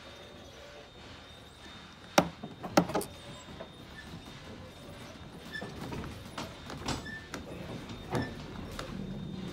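A heritage railway carriage rolling slowly behind a steam locomotive. There are a few sharp clunks a little over two seconds in, then scattered knocks and creaks from the running gear and couplings over a low rumble.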